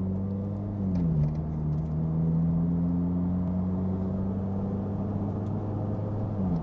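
Turbocharged Scion FR-S's 2.0 flat-four engine running steadily, heard inside the cabin while driving. Its pitch steps down about a second in, holds steady, then drops again near the end.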